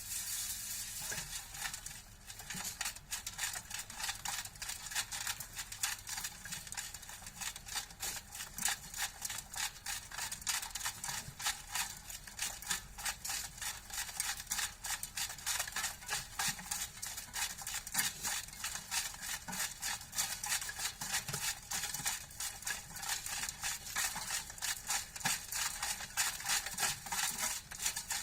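Sand being shaken through a vibrating sieve made from a washing machine: a steady, dense rattle and hiss of grains.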